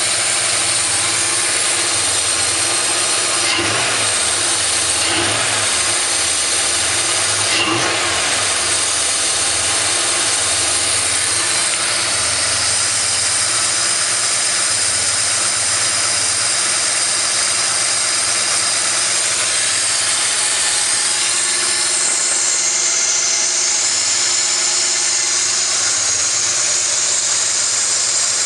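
Ford Lightning's V8 with an aftermarket Cobra cam idling roughly, its speed rising and falling a few times in the first several seconds and then settling steadier. The idle hunt comes from a vacuum leak: the fuel pressure regulator's vacuum hose is disconnected from the vacuum tree behind the throttle body.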